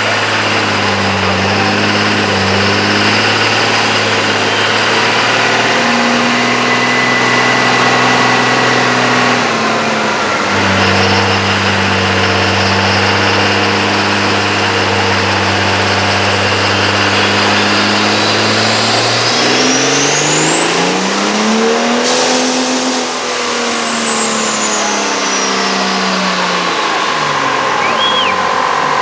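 High-horsepower car engine held at steady revs, easing off briefly about ten seconds in. It then revs up to a peak about twenty-two seconds in and falls back, with a high whistle climbing and dropping along with the revs.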